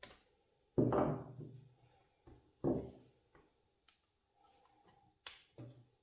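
Handling noise from working on an opened laptop and tools on a bench: two louder low thumps about a second in and near three seconds, then a sharp click and a smaller thump near the end.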